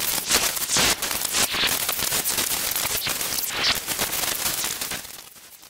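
Dense crackling: many rapid, irregular clicks and pops, fading out near the end.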